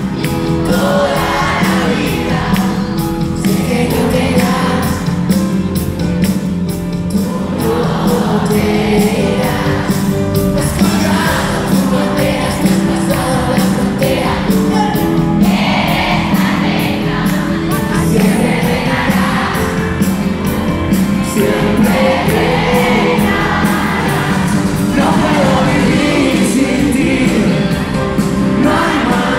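Live pop concert: a male singer singing into a microphone over piano and a steady beat, with the audience's voices mixed in.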